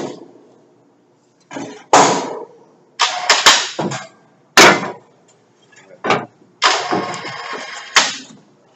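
Irregular loud metallic bangs and clanks, about six of them, each dying away quickly, with a longer scraping rush of about a second and a half near the end.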